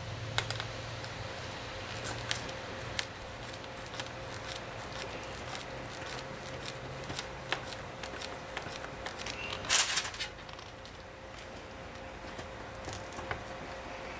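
Gloved hands handling a cast outboard-engine housing and small metal parts on a workbench: scattered light clicks and taps, with a louder scraping rustle about ten seconds in, over a faint steady hum.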